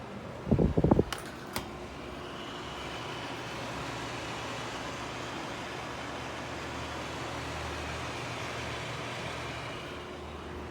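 A brief clatter of knocks and two sharp clicks, then a Corona CW-FA1819 window air conditioner running with a steady fan rush and a faint high whine, which swells after a couple of seconds and eases off near the end.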